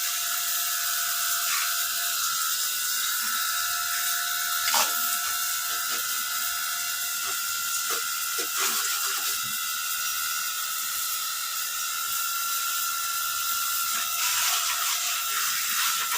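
Battery-powered cordless pressure washer running steadily on a full charge: a high motor whine over the hiss of the spray, with a few short knocks.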